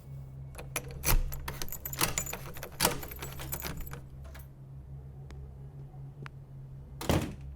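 Keys jangling and clicking, as of a key being worked in a door lock, with a louder knock near the end, over a steady low drone.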